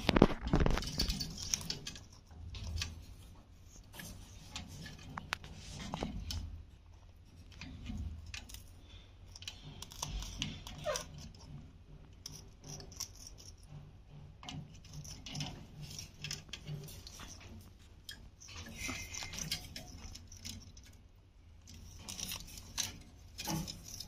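Alexandrine parakeet biting and chewing green capsicum: irregular crunches and beak clicks with light rattles of the wire cage floor, loudest in the first second or so.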